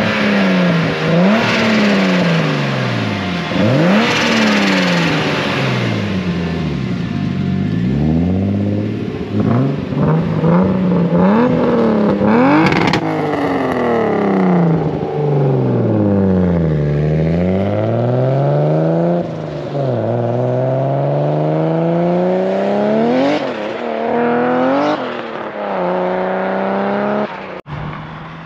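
Turbocharged BMW E30's exhaust as the engine is revved over and over, its pitch climbing and falling away many times. In the second half the revs sink slowly, then come in a run of rising pulls that each drop off sharply.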